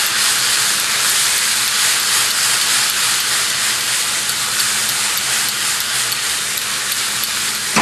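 Bell pepper strips, capers and red wine vinegar sizzling in a hot frying pan: a steady hiss with faint crackles as the vinegar reduces.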